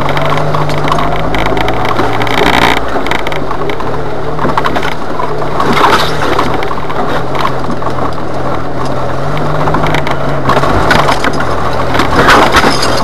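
Jeep Wrangler engine running steadily as it drives a rough trail, with constant cracking and clattering from sticks and brush under the tyres and against the body. The clatter is louder about six seconds in and again near the end.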